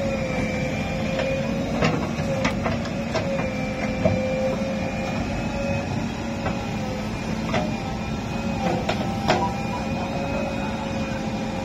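JCB 3DX backhoe loader's diesel engine running under load with a steady whine while the backhoe arm digs, and a few sharp clanks from the bucket and boom linkage spread through the stretch.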